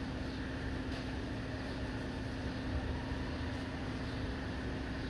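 A steady low machine hum with one constant tone, unchanging throughout.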